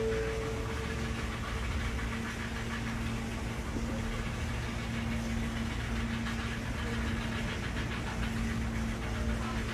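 Steady low mechanical rumble with a constant faint hum.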